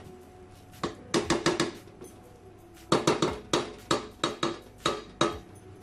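Wooden spatula stirring cooked rice in a stainless steel pot, knocking and scraping against the pot's rim and sides in quick, irregular clusters of sharp taps.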